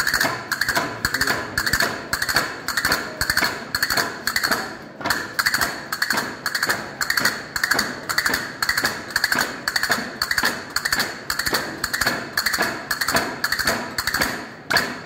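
Steady rhythmic knocking of wooden shepherd's staffs in a traditional shepherds' dance, about three sharp knocks a second.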